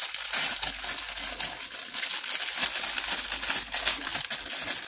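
Thin clear plastic packaging bag crinkling and rustling continuously as it is handled and a silicone resin mould is pulled out of it.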